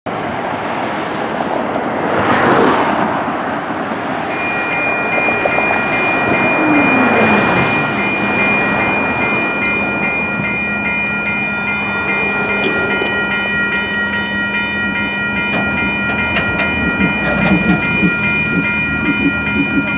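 Cars passing over the road, then about four seconds in the grade crossing's electronic warning bells, two WCH electronic bells, start ringing in a steady, fast pulsing ding that keeps going as the gates come down. A low clatter of the approaching train starts to build near the end.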